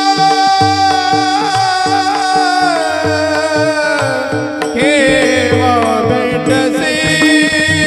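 Devotional kirtan singing: a singer holds a long, high note that slowly sags, then starts a new phrase with an upward glide about five seconds in. A harmonium sustains drone tones beneath, and a mridang plays quick strokes.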